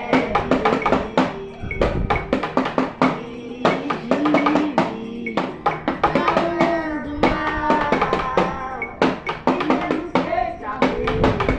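Music: a song with a melody line over a steady drum kit beat, the kit being played along with the recording.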